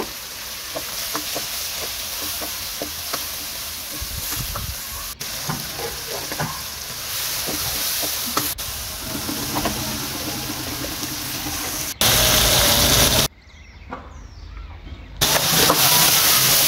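Chopped onions and tomatoes frying in hot oil, sizzling, with a wooden spoon stirring and scraping in scattered small clicks. The sound changes abruptly several times, with a short muffled drop about two-thirds through and a louder stretch near the end.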